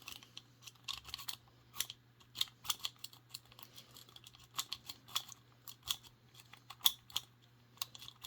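A lock rake scraping and clicking against the pins inside a discus padlock's tight keyway: irregular sharp ticks and short scrapes, a few a second, with the lock not yet opening.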